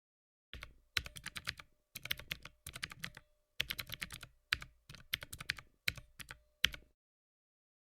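Keyboard typing: quick runs of sharp keystroke clicks in about eight bursts with short gaps between, stopping just before seven seconds in.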